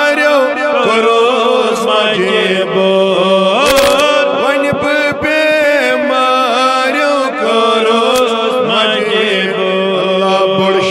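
Kashmiri devotional chant in praise of Alamdar (Shaikh-ul-Aalam), sung in long held, wavering notes over a steady low drone. There is a brief knock about four seconds in.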